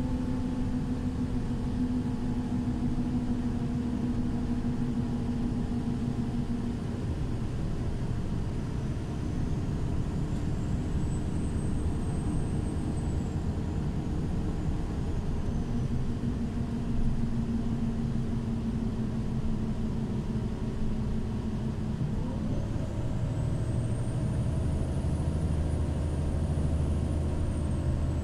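Irisbus Crossway 12M bus under way, its engine running steadily with its tones slowly sinking, then shifting to a new pitch about three quarters of the way through as the low rumble grows. A faint high whine rises and falls twice over it.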